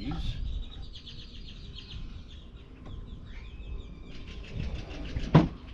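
Birds chirping repeatedly in the background, with one sharp knock a little over five seconds in.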